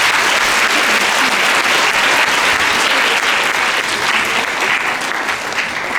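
An audience of children and adults applauding in a large hall, a dense steady patter of many hands clapping that eases slightly near the end.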